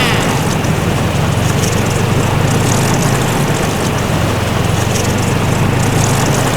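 Snowmobile engine running at a steady drone, with a hiss of noise over it.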